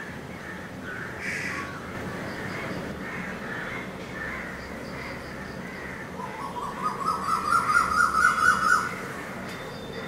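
A loud chattering animal call, a rapid run of repeated notes rising slightly in pitch, from about six to nine seconds in, over faint chirping birdsong.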